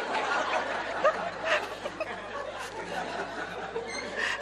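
A group of listeners laughing and chuckling together, many short overlapping laughs.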